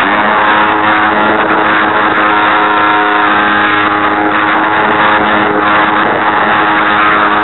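Electric motor and propeller of an RC Super Cub model airplane, heard through the camera on board, running at steady throttle as a constant buzzing whine over rushing noise. The plane is flying with a broken gearbox, which the uploader blames for heavy vibration.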